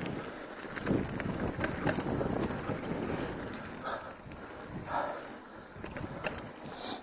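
Mountain bike riding over a dirt singletrack trail: tyre noise on the dirt with rattling and sharp clicks from the bike over the rough ground, busiest about one to three seconds in.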